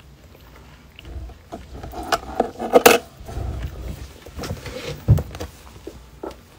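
Handling noise close to a phone microphone: a run of clicks and knocks, loudest about three seconds in, over a low rumble, then a single thump about five seconds in.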